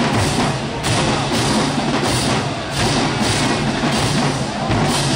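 Marching band music, loud and continuous, with drums carrying the beat.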